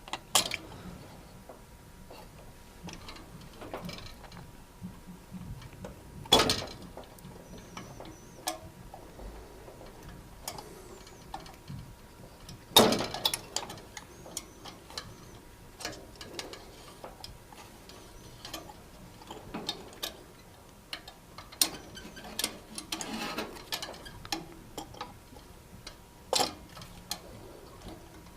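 Scattered small metallic clicks and ticks as push-on spade connectors are worked off the terminals of a ceramic hob's hot plate element, eased with a flat-headed screwdriver. A few sharper clicks stand out, at about six, thirteen and twenty-six seconds in.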